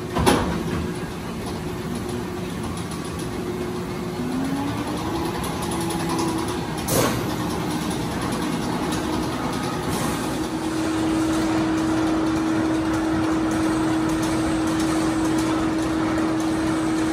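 Arrow suspended roller coaster machinery running as a train leaves the station and climbs the lift hill: a steady mechanical hum, a sharp clank just after the start and another about seven seconds in, and a short rising whine around four seconds. About ten seconds in, a louder steady hum sets in and holds.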